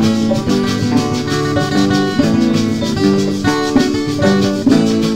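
Instrumental break in a salsa sabanera song: guitar playing the melody and chords over a steady beat, with no singing.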